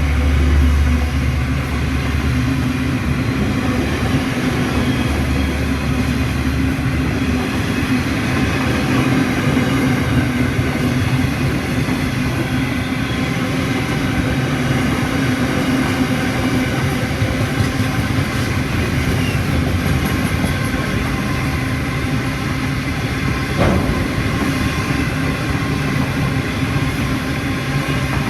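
Freight train rolling past at steady speed, its wagons rumbling continuously on the rails, with the low drone of the NR- and AN-class diesel-electric locomotives strong in the first several seconds. A single sharp knock sounds about three-quarters of the way through.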